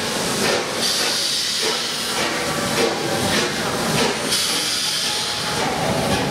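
Three-cylinder Royal Scot class 4-6-0 steam locomotive 46115 'Scots Guardsman' moving off slowly, steam hissing from its cylinder drain cocks in repeated surges about once a second.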